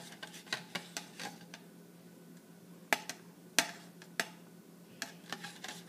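Metal spoon clicking and tapping in a plastic cup of egg dye: a run of quick light clicks, then a few sharper single taps about three and four seconds in.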